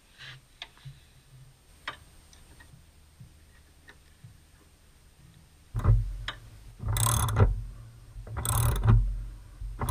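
Light metallic clicks and ticks of spanners and tools on the steering and pedal linkage bolts. About six seconds in come several loud, short hissing bursts, about a second apart, of a WD-40 aerosol being sprayed onto the linkage.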